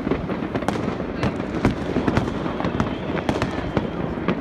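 Fireworks and firecrackers going off across a city, a dense, unbroken string of irregular bangs and cracks with no pause.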